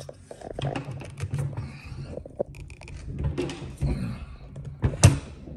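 Handling noise: a string of small clicks and knocks as things are moved about on a hard work surface, with one sharper knock about five seconds in.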